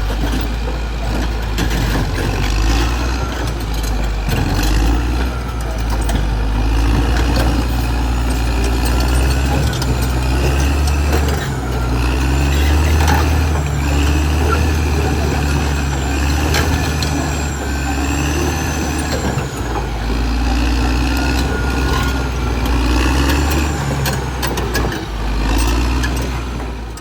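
Caterpillar D6R XL bulldozer's diesel engine running with a deep, shifting rumble, with high whining squeals rising and falling over it.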